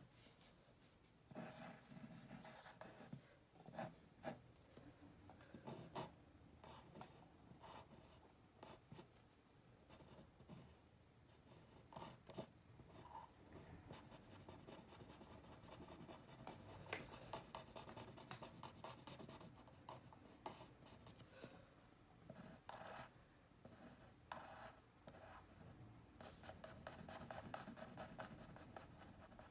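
Pencil drawing on paper: faint, irregular scratching strokes.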